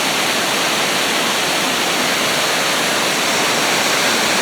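Waterfall on a rain-swollen creek running hard: a loud, steady rush of falling water.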